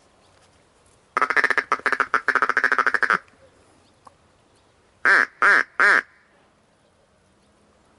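Duck quacking, loud and close: a fast run of quick quacks for about two seconds, then, after a short pause, three longer quacks.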